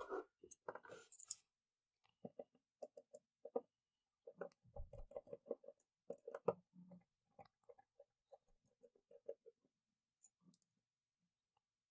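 Faint, quick clicks and ticks of a small Torx screwdriver working the tiny T6 screws that hold a folding knife's pocket clip, with light taps of metal on metal.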